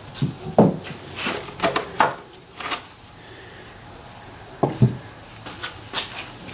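Hard plastic timing-belt covers off a Subaru engine knocking and clattering as they are handled and set down on the bench: a run of knocks through the first few seconds, then a few more in the second half, over a faint steady hum.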